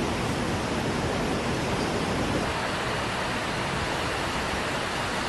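Heavy rain pouring down, an even, steady rushing hiss.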